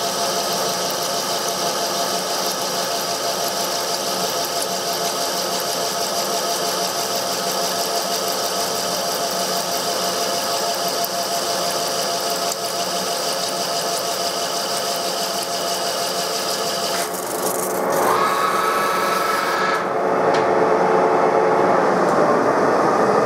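TOS SN63B lathe running under a turning cut, its gear train whining steadily while a DCMT carbide insert cuts the outside of a metal wheel hub and chips break off. About 17 seconds in the sound changes: the hiss of the cut drops away and a higher, louder whine comes in.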